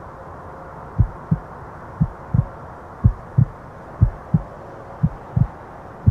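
Heartbeat sound effect: low double thumps (lub-dub), about one beat a second, starting about a second in. Under it runs a steady background hiss.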